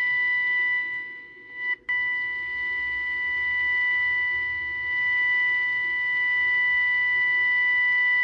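Steady, slightly harsh test tone from a five-transistor AM radio's small speaker, the demodulated tone of a signal generator feeding the set's 455 kHz IF. The tone fades about a second in and drops out briefly near two seconds as the IF transformer slug is turned, then comes back and holds. Its loudness tracks how close the IF transformer is to being peaked during alignment.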